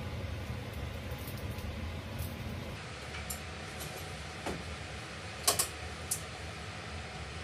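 A low steady hum, then a few sharp clinks and knocks of kitchenware being handled at a counter. The loudest is a double knock about halfway through.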